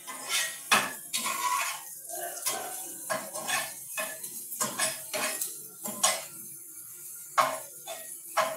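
Metal spatula scraping and knocking against a frying pan as food is stirred and tossed. It is a quick, irregular series of scrapes and clanks, loudest about a second in and twice near the end.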